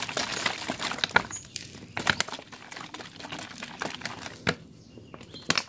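Liquid sloshing in a capped plastic bottle being shaken hard to mix it, the plastic crackling and knocking with each stroke. The strokes come thick and fast for about two seconds, then grow sparser.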